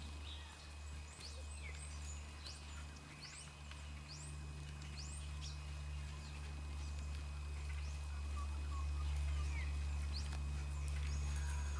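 Wild birds chirping in short, quick rising and falling calls, most often in the first few seconds, over a steady low rumble.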